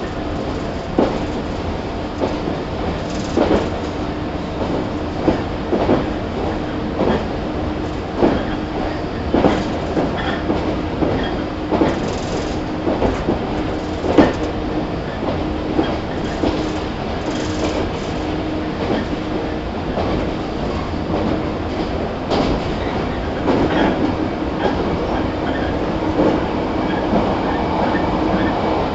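Running sound heard inside a JR 115 series 1000-subseries electric multiple unit (KuMoHa 115-1005) travelling at speed: a steady running hum under the rumble of the wheels, with the wheels clicking over rail joints every second or so. The rumble grows a little louder near the end.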